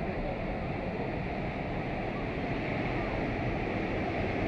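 Ocean surf breaking and washing in, a steady rushing noise with no distinct crashes.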